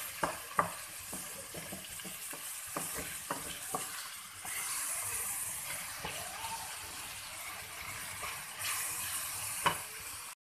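Boneless chicken with chopped onion and garlic-ginger paste sizzling in hot oil in a pan, stirred with a spatula that knocks against the pan now and then. The sound cuts off abruptly just before the end.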